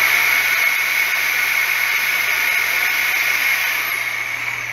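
Cordless power saw running steadily as it cuts through a deer's neck bones. Near the end its pitch falls and the sound eases off as the motor slows.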